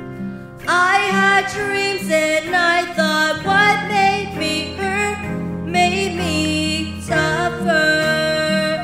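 A child singing a slow song over strummed acoustic guitar accompaniment. The guitar plays alone at first and the voice comes in about a second in, holding a long note near the end.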